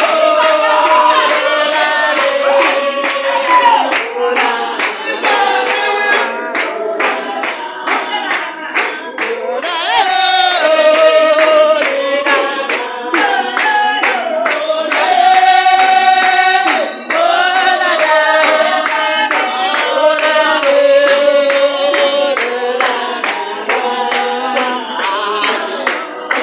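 Spiritual Baptist congregation singing a hymn together, with rhythmic hand clapping.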